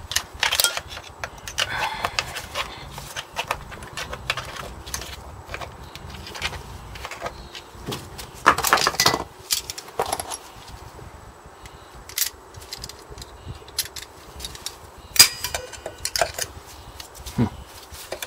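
A thin steel screwdriver picking and levering at the worn crank spigot bush in the end of the crankshaft, giving irregular metallic clicks, scrapes and clinks, with a louder clatter about eight seconds in and a sharp click near fifteen seconds in.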